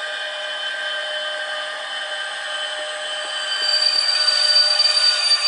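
Sound decoder of a Piko HO-scale Br152 electric locomotive playing its traction-motor whine through the model's small speaker, a steady blend of several tones, with the faint clicks of the rail-joint sound function. About two-thirds in, a high steady tone joins and the sound grows louder.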